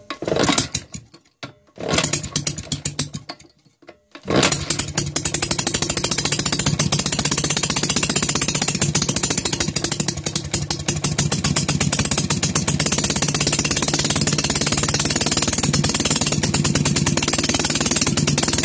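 Maytag Model 72 twin-cylinder two-stroke engine being kick-started on its first start after a full rebuild: it sputters in short bursts that die away twice, then catches about four seconds in and runs steadily with fast, even firing.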